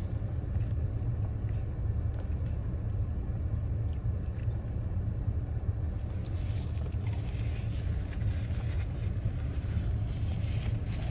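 Steady low rumble of a car idling, heard from inside the cabin, with a few faint rustles and clicks on top.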